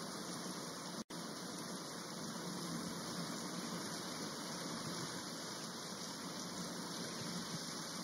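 Steady rushing of a shallow forest stream tumbling over rocks, an even hiss of water that cuts out for an instant about a second in.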